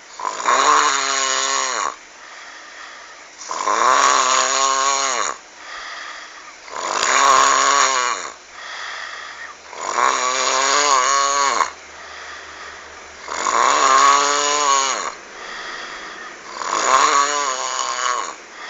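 A person snoring loudly, six snores about every three seconds, each a rasping, pitched snore that sounds like a frog and drops in pitch at its end. A quieter breath is heard between snores.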